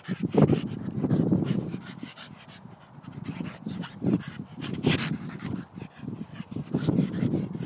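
Staffordshire bull terrier panting in close, uneven bursts while playing, easing off for a moment about two seconds in. Knocks and rubs against the microphone come in between, the sharpest about five seconds in.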